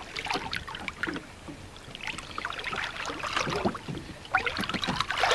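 River water splashing and sloshing against a boat's side as a dorado is held in the water and released, in irregular small splashes that grow louder near the end.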